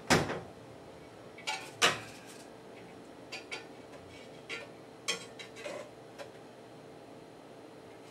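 Kitchen utensils knocking and clinking against a cooking pot as boiled jicama sticks are lifted out of it. There are two sharp knocks in the first two seconds, then lighter scattered clicks, over a faint steady hum.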